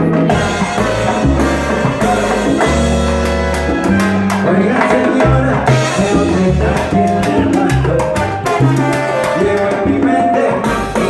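Live salsa band playing: bass notes under horns or piano with congas and timbales keeping the beat.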